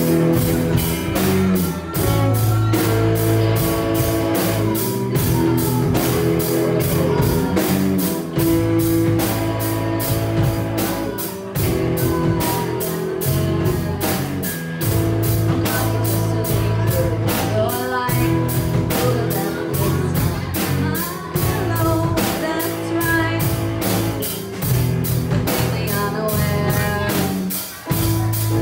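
Student rock band playing live: a steady drum-kit beat under bass and electric guitar chords.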